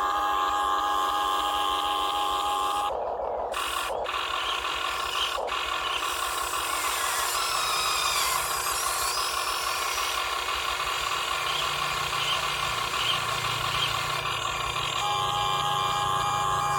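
Motors and gears of a metal 1/20-scale RC CAT 330DL excavator running with a steady whine, the pitch wavering for a few seconds in the middle as the machine works.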